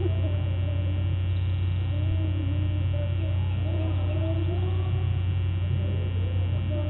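Steady low electrical hum on the webcam's audio, with faint voices singing behind it in drawn-out, wavering notes.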